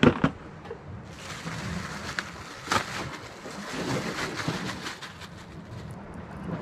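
Thin plastic bag crinkling and rustling as it is unwrapped from a bundle of small bait fish, with two sharp handling knocks at the very start and another crackle about three seconds in.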